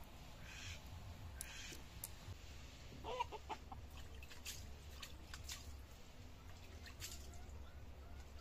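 A chicken clucks briefly about three seconds in. Around it are scattered light taps and scrapes as pieces of fish are cut and handled on the ground.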